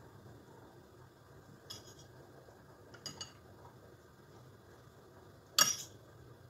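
Metal spoon clinking against a ceramic plate and dish while spooning filling: four short clinks, two of them close together in the middle and the loudest near the end.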